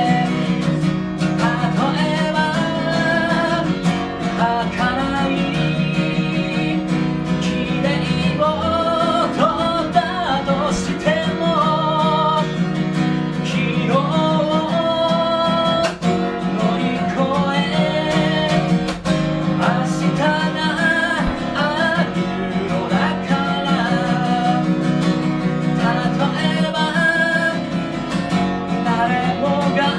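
Steel-string acoustic guitar strummed steadily, with a man singing over it in phrases.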